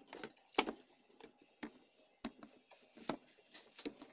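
Irregular light clicks and taps, about five of them, from hands and a screwdriver handling the wiring inside a CRT television's chassis.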